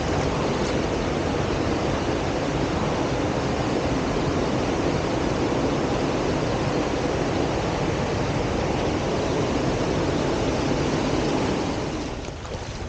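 Waterfall rushing steadily, close by, easing off about a second before the end.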